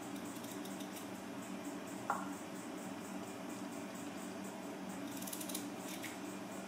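Knife cutting through peeled potatoes held in the hand, with a short sharp knock about two seconds in as potato halves are set into a glass baking dish, and a brief crisp scrape of the blade through a potato near the end. A steady low hum runs underneath.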